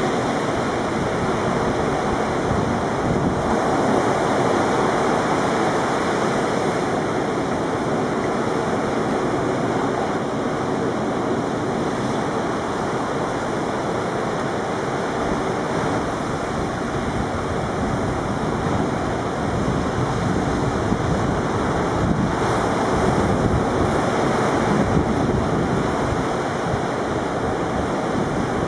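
Heavy ocean surf breaking continuously, a steady rushing roar of waves that swells a little twice, with wind buffeting the microphone.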